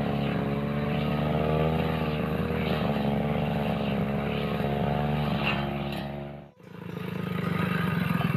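Two-stroke backpack brush cutter engine running steadily at cutting speed while its blade sweeps through grass. About six and a half seconds in the sound cuts off suddenly, and a rougher engine sound follows.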